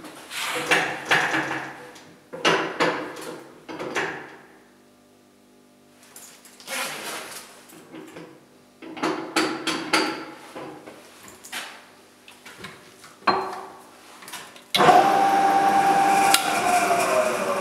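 Irregular knocks and metallic clatter. Then, about fifteen seconds in, a loud steady whine as a vertical mill's twist drill cuts into a small metal block held in a vise; the whine falls in pitch near the end.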